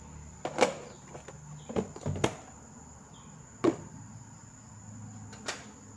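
A handful of sharp kitchen taps and knocks, about five spaced a second or more apart, over a faint low hum: utensils and containers being handled while salt goes into a pot of rice.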